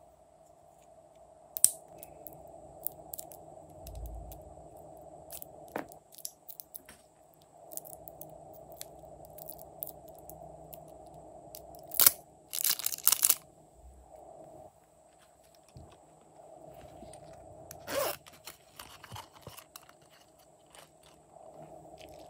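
Hands handling small plastic objects over slime trays, a plastic comb and a small plastic tube: scattered sharp clicks and taps, with a dense crunchy rustle about twelve seconds in. A faint steady hum comes and goes underneath.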